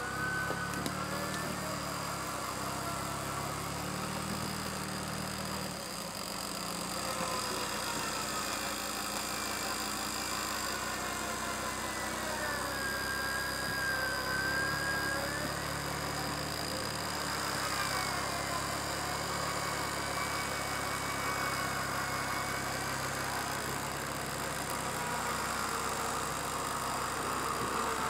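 Land Rover Defender's engine running steadily under load, with a thin whine that slides up and down in pitch as its winch hauls the truck up the slope.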